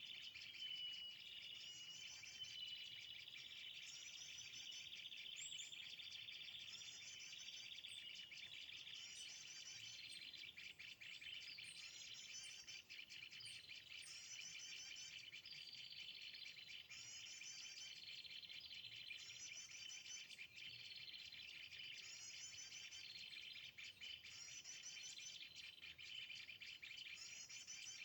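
A high, chirping bird-call phrase repeated every couple of seconds, each repeat much like the last, over a steady insect drone.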